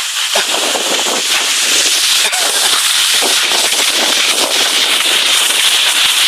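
Skis sliding and scraping over packed snow during a downhill run: a loud, steady, crackly hiss.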